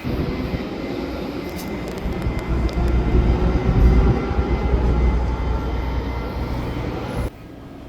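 A train rumbling past, deep and steady, swelling to its loudest about four seconds in, then cut off abruptly a little after seven seconds.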